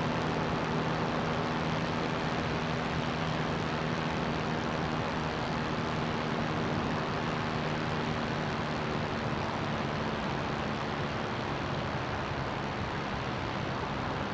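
CGS Hawk ultralight's engine and propeller droning steadily in flight, a few steady low tones over a dense rush of noise, easing slightly near the end.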